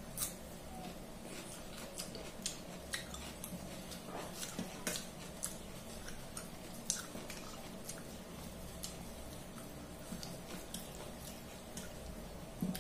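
Eating by hand from a stainless steel plate: fingers mixing rice and curry give irregular sharp clicks and scrapes against the steel, with wet chewing sounds, over a faint steady hum.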